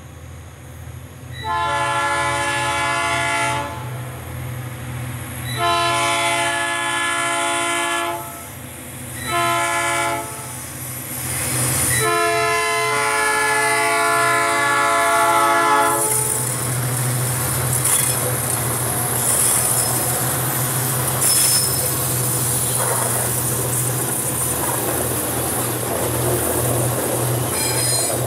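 Freight train's diesel locomotive sounding a multi-tone air horn in four blasts, long, long, short, long, the level-crossing warning. Then the locomotives and freight wagons pass close by, engines rumbling steadily, with wheels clattering and squealing on the rails.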